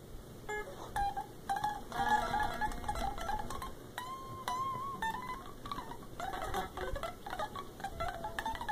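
Unplugged solid-body electric guitar played fast with a pick, so only the bare strings sound: quick runs of short single notes (shredding), with a wavering, bent note about four seconds in.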